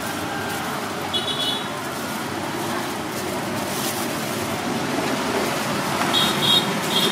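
Steady street traffic noise with passing motor vehicles. Short high-pitched beeps sound about a second in and twice more near the end.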